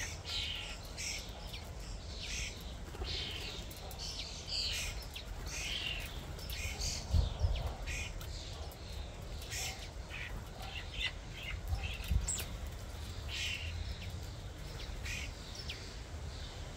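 European starlings, adults and brown juveniles, giving short harsh chirping calls over and over. Two low thumps stand out, about seven and twelve seconds in.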